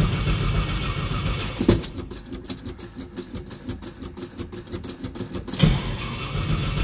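1970 Chevrolet Nova's engine being cranked over by the starter on a cold start, in an even rapid rhythm, not yet catching to an idle. A sharp loud bang comes near the end.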